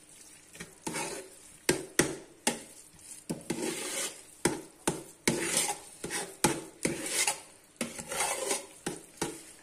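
Metal spoon stirring cooked rice in a metal pot: soft scraping through the rice, broken by about a dozen irregular clinks as the spoon knocks against the pot's side.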